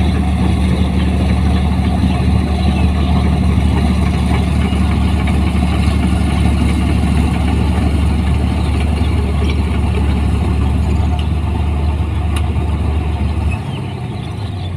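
New Holland 1545 combine harvester's diesel engine running steadily with a low drone as the tracked machine drives out of the paddy field. The low drone drops away near the end.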